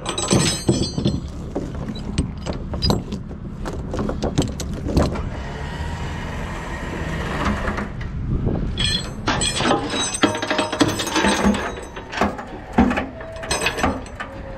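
Steel tie-down chain and J-hook clinking and rattling against the steel trailer frame: a run of irregular sharp metallic clanks with a ringing edge, over a steady low rumble.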